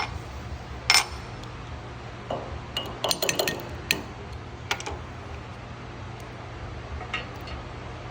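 Steel mower parts and bolts clinking and tapping against each other as they are handled and fitted: one sharp clink about a second in, a quick cluster of clinks around three to four seconds in, then a few scattered taps, over a steady low hum.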